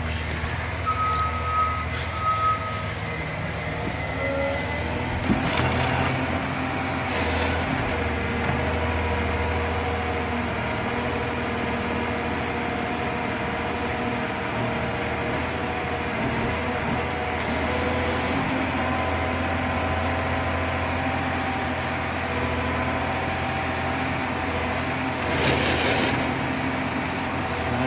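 John Deere 1270G forestry harvester running steadily, its engine and hydraulics droning. A short high tone sounds in the first few seconds, and a few brief hisses come about five and seven seconds in and again near the end.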